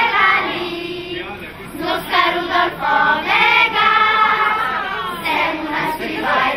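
A group of children singing together, in held notes with short breaks between phrases.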